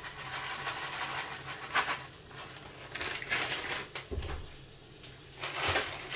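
Diced onion poured from a plastic bag, the pieces pattering into a frying pan, with the bag crinkling in several short bursts and a soft knock about four seconds in.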